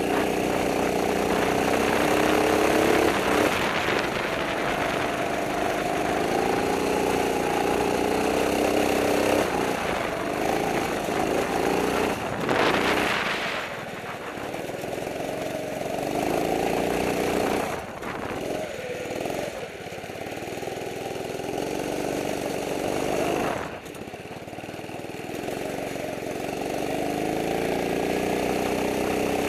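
Go-kart engine heard on board, its pitch rising as it accelerates and falling away each time the throttle is lifted, several times over.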